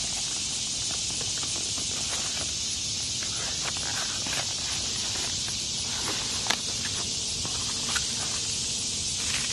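Light clicks and rustles of the battery isolator's parts and packaging being handled, over a steady high-pitched hiss.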